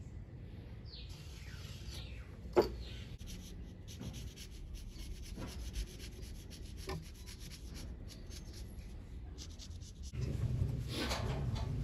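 Faint rubbing and handling of a steel knife blade by gloved hands working a marker pen along its edge, with one sharp click about two and a half seconds in and a few lighter ticks. A low rumble comes in near the end.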